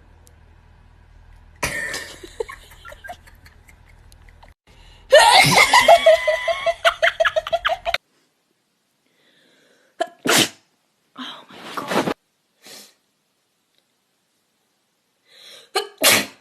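A run of human sneezes from different people, one after another. The loudest, about five seconds in, trails off into a drawn-out pulsing voiced sound. Short, sharp sneezes follow about ten, eleven and sixteen seconds in.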